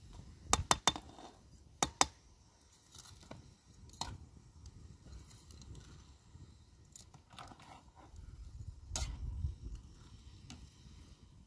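Sharp clicks and knocks of hard objects: three in quick succession about half a second in, two more near the two-second mark, then a few fainter ones spread through the rest.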